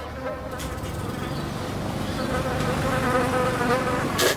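A steady buzzing drone that grows slightly louder, with a brief hiss just before the end.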